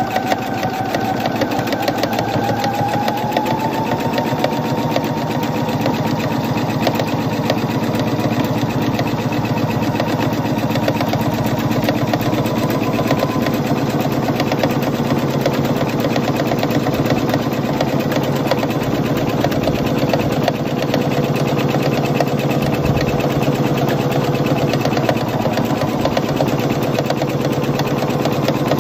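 Electronic domestic sewing machine running steadily, stitching a seam through layered fabric: a motor hum under a fast, even patter of needle strokes, its pitch rising a little in the first few seconds as it gets up to speed.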